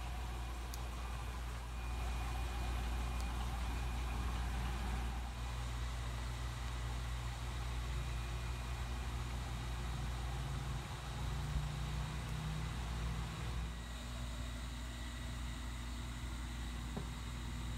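Steady low rumble and hum of background machinery, with a faint steady high whine.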